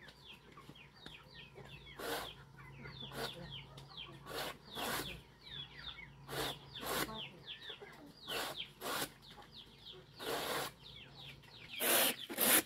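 Large knife slicing thin rounds off a fresh banana trunk, a rasping stroke roughly once a second, the loudest near the end. Chickens call throughout with many short, high, falling peeps and clucks.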